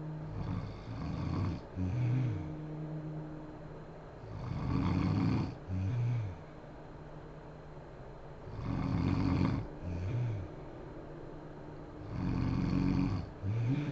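A woman snoring in her sleep: four snores about four seconds apart, each followed by a short, lower humming tone that dips and rises in pitch.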